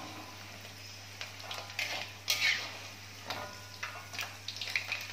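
Metal skimmer and spatula clinking and scraping against a wok as fried potato cubes are scooped out of the oil, a string of short knocks with the loudest about two seconds in.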